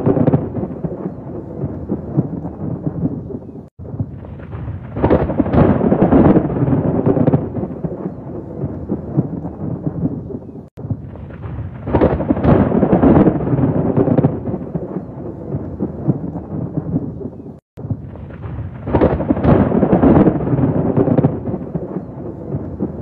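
Rolling thunder over rain. Loud peals swell about every seven seconds, each one just after a brief, abrupt cut to silence.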